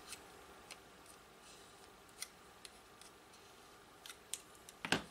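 Faint, scattered small clicks and scrapes of a thin metal tweezers tip prying between a phone charger's plastic case and the silicone-glued circuit board inside, with a closer run of clicks near the end, the loudest just before it stops.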